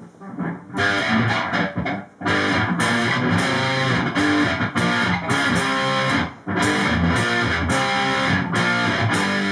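Epiphone Les Paul electric guitar with humbucking pickups, played through an amplifier: chords and notes strummed and picked, with brief breaks about two seconds in and again just past six seconds.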